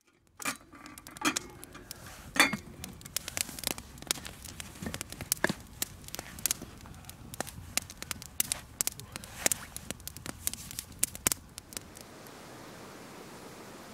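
Wood campfire in a steel fire ring crackling, with irregular sharp pops, several a second at times. The pops stop about twelve seconds in, leaving a faint steady hiss.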